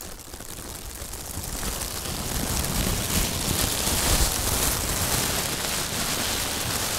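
Logo-intro sound effect: a dense crackling, hissing noise that swells over the first two or three seconds and then holds steady.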